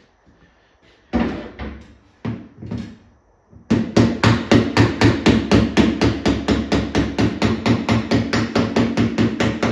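Pointed pick end of a body hammer lightly tapping the steel door skin of a 1949 Ford pickup, knocking down a high spot so that it sits just low for filler. A few single taps come first, then from about four seconds in a quick, steady run of light taps, about five a second.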